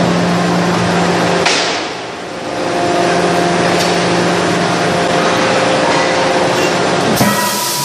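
Forging press machinery running in a forge shop: a loud, continuous hum and hiss with steady droning tones, and a brief noisy swell about a second and a half in.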